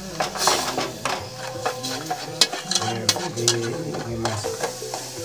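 Metal spoon stirring sugar and water in a metal pot, scraping and clinking against the sides in quick, irregular strokes.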